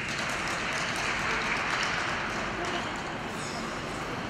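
Applause from spectators, swelling just before this point and easing off after about three seconds.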